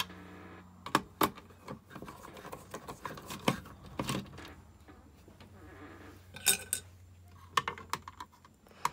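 Scattered small clicks and taps of a screwdriver and screws against the plastic back case of a Concept2 PM3 rowing monitor as its four back screws are taken out, with handling noise between.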